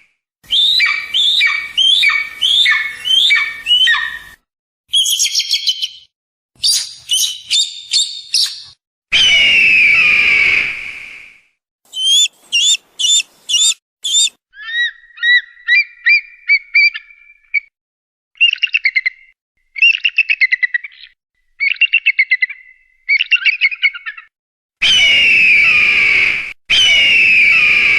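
Kite (cheel) calls: shrill whistling cries and quavering trills, with several long falling whistles and runs of quick repeated falling notes. Separate recordings follow one another with abrupt cuts and short silent gaps.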